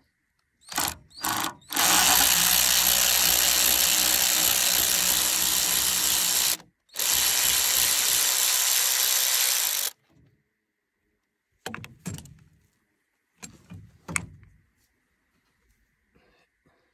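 Cordless electric ratchet wrench running on a rusted bolt: two short blips, then a steady whir for about five seconds, a brief stop, and about three more seconds of running. A few light clicks follow near the end.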